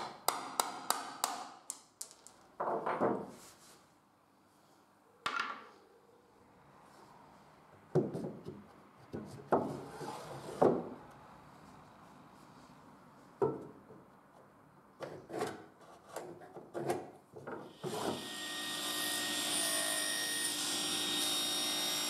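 A hammer tapping a chisel in a quick run of light strokes on a small wooden drawer, then scattered wooden knocks and scrapes. From about 18 s to the end a table saw runs steadily.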